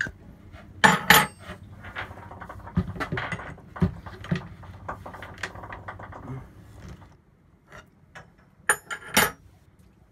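Metal clinks and knocks at the head of a sailboat's rudder shaft, an adjustable wrench fitted on it, as the new rudder is drawn up into the hull. A loud pair of knocks about a second in, scattered clinks through the middle, and two more sharp knocks near the end.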